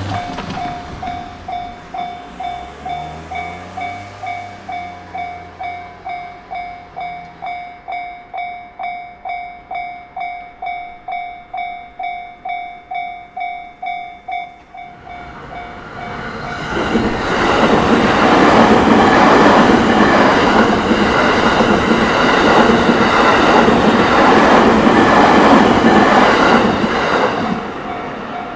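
Japanese level-crossing warning bell ringing in a steady rhythm of about two strikes a second for roughly fifteen seconds. A train on the JR Takasaki Line then passes through the crossing, loud and rattling, for about ten seconds before fading near the end.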